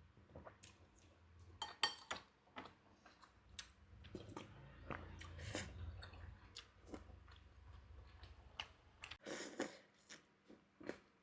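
Close-miked chewing of cuanki meatball soup: a string of short wet mouth clicks and smacks. About nine seconds in there is a brief louder rushing sound.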